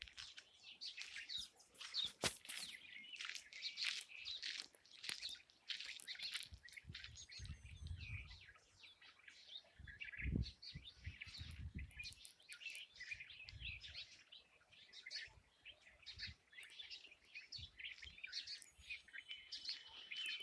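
A chorus of many birds chirping and calling, short overlapping chirps with no pause, with a few brief low rumbles in the middle.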